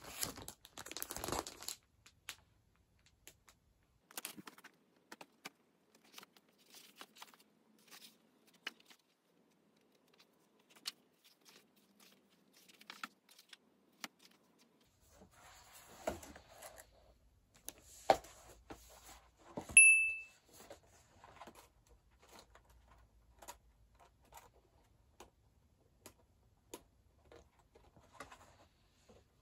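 Handling of a large photobook and plastic packaging: pages turning and rustling, with scattered light clicks and plastic crinkling. About twenty seconds in comes a sharp click with a brief ringing tone, the loudest sound.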